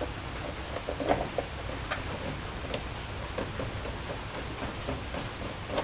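Scattered light clicks and taps of hands working a boat's battery hold-down, tightening it down over the battery, against a steady low background noise.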